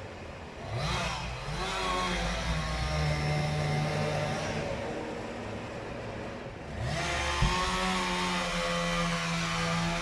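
An engine revved up about a second in, held at speed, eased off, then revved up again near the end and held.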